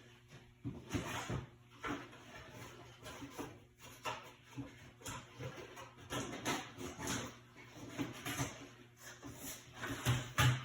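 Irregular knocks and clinks of tools and brake parts being handled during a rear brake job, with a louder pair of knocks near the end.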